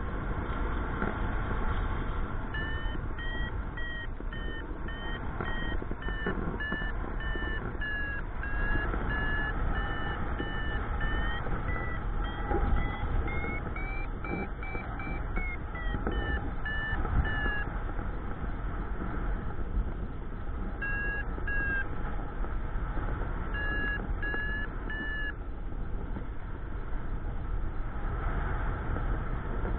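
Paragliding variometer beeping its climb tone: runs of short beeps that rise in pitch to a higher, almost continuous tone around the middle, signalling lift. Later come a few shorter runs. Under it, steady wind noise rushes over the microphone.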